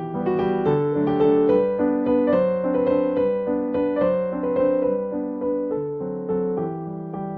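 Background music played on piano or electric piano: a gentle melody over held chords.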